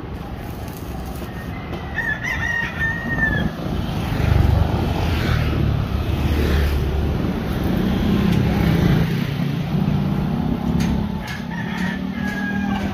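A rooster crowing in short pitched calls, over a louder low rumble that builds from about four seconds in.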